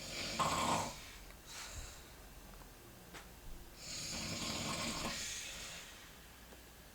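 A sleeping person snoring: a short, loud snore in the first second, then a longer, softer snoring breath from about four to six seconds in.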